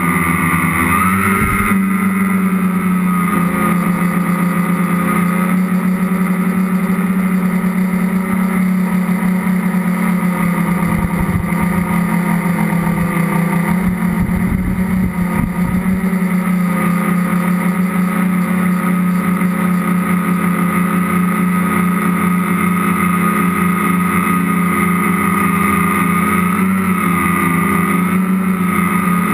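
Tricopter's three electric motors and propellers running in flight, heard from a camera mounted on the aircraft: a steady, loud buzzing hum. The pitch rises and wavers about a second in and again near the end as the throttle changes.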